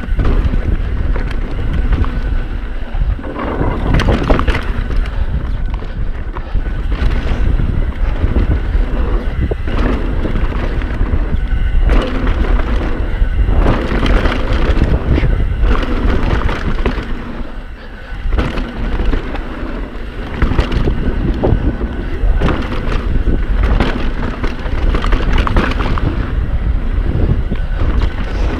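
Mountain bike riding fast down a rough dirt trail, heard from a GoPro on the rider. Wind buffets the microphone as a steady rumble, over a constant clatter and rattle of the bike on bumpy ground. It eases briefly about two-thirds of the way through.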